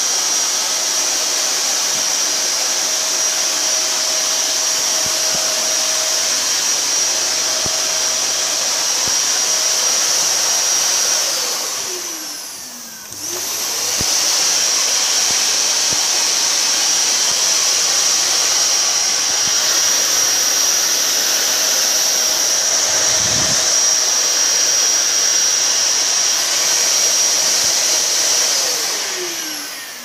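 Canister vacuum cleaner running steadily with a high whine, its exhaust blowing air upward. About midway it spins down, falling in pitch, then starts up again abruptly; near the end it spins down again.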